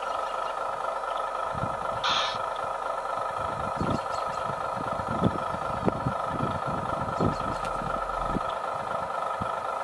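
Steady high whine of the electric motors and gearing of radio-controlled model construction machines, a wheel loader and an excavator. Irregular low knocks run through it, and there is a brief hiss about two seconds in.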